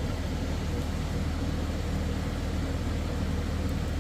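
Steady low mechanical hum with a constant pitch, like a running engine or machine.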